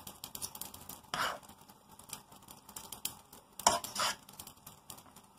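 Two forks tossing fettuccine in a frying pan: light clicks and scraping of the forks against the pan, with two louder passes, about a second in and again near four seconds.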